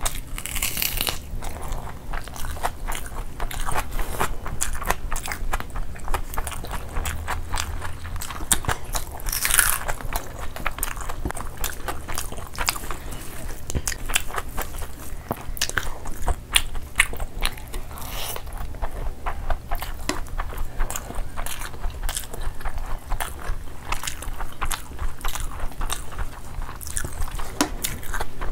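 Close-up eating sounds of two people eating chicken curry and rice with their hands: chewing, biting into chicken and mixing rice by hand, a dense stream of small clicks with a few louder bites.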